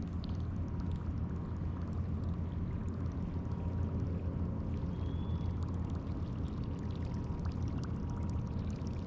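Steady low rumbling noise with faint water gurgling and scattered small clicks, heard from a kayak on the water.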